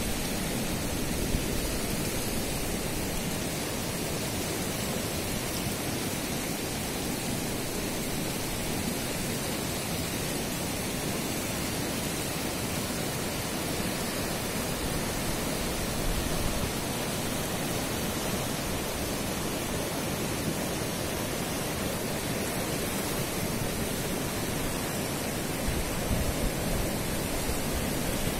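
Fast, silty mountain river rushing over rocks: a steady, even sound of white water.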